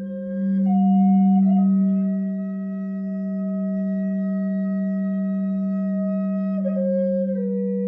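Bamboo flute playing slow notes, one held for about five seconds before stepping down twice near the end, over the steady low hum of a ringing singing bowl.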